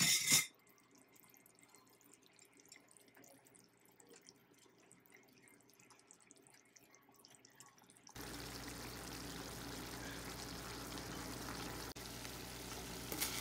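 Chicken simmering in a cassareep-and-water sauce in a pan: faint bubbling at first, then an abrupt step about eight seconds in to a steady, louder sizzle. A short, sharp knock comes at the very start.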